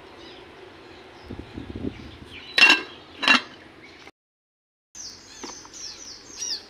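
Metal lid being set on a cooking pot: two sharp clinks a little under a second apart.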